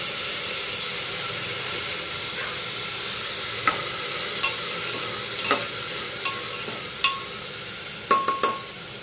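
Vegetables sizzling in hot oil in an aluminium pressure cooker as they are stirred, the metal spoon clinking and scraping against the pot every second or so, with a quick run of three clinks near the end. The sautéing is nearly done.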